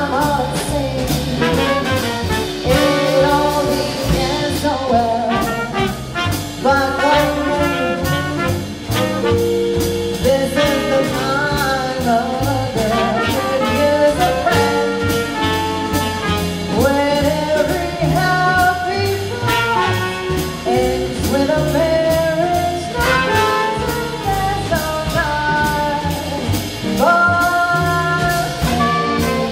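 A woman singing a jazz standard with a small live jazz band: double bass underneath and saxophone alongside the voice.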